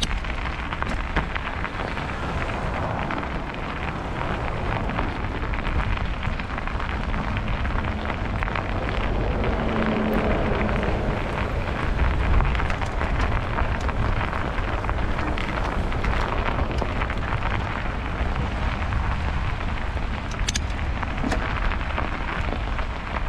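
Steady noise of a bicycle rolling through snow on a road: tyres on the snowy surface, with wind rumbling on the microphone.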